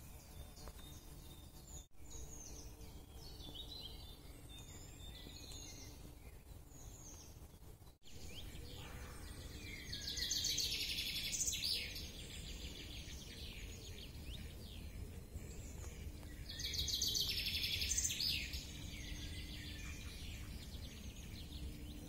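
Wild birds calling in woodland: scattered short chirps and whistles, then two loud bouts of rapid trilling song about ten and seventeen seconds in, over steady low background noise. The sound cuts out for an instant twice, early and about a third of the way through.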